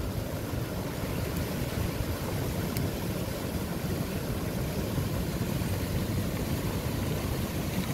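Steady rush of surf breaking on a rocky pebble shore, with a low rumble of wind on the microphone.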